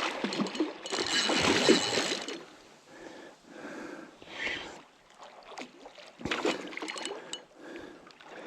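Water splashing and sloshing in irregular bursts as a hooked barramundi is landed in the shallows. The loudest and longest splash comes about a second in, with smaller ones later.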